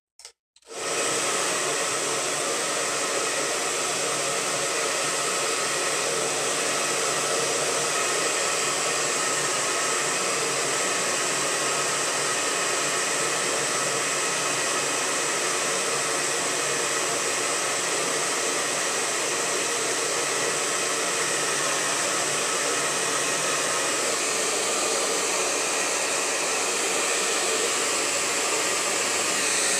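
Handheld hair dryer switched on just under a second in, then running steadily with an even blowing noise as it dries acrylic paint on a canvas.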